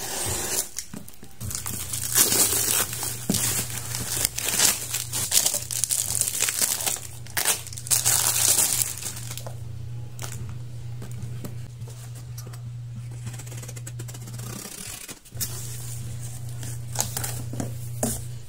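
Black plastic parcel wrapping being torn open and crinkled in repeated bursts for the first half, then lighter rustling of plastic packaging, over soft background music.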